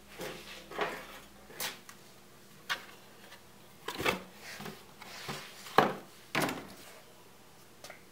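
A series of irregular knocks and clunks, about ten in all, the loudest about six seconds in.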